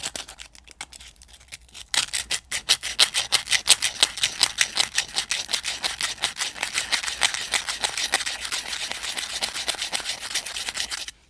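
Sandpaper disc rubbed by hand over the steel spoon-shaped blade of an old Ontario Knife Co. spoon knife, sanding off rust. A few separate scratches at first, then from about two seconds in a fast, steady run of back-and-forth scraping strokes, several a second, that stops abruptly near the end.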